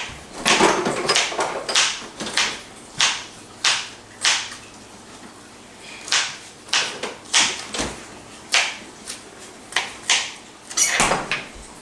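Kitchen knife chopping onion on a plastic cutting board: sharp, irregular knocks about one to two a second, with a pause of a second or so midway.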